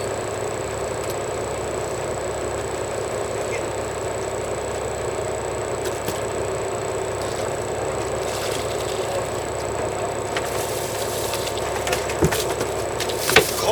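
Fishing boat's engine running steadily, with a few sharp knocks near the end.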